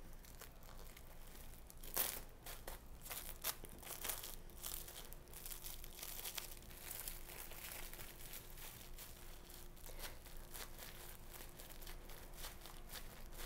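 Plastic cling film crinkling and crackling as it is pulled and pressed tightly around a sandwich by hand: a faint, irregular crinkle with a sharper crackle about two seconds in.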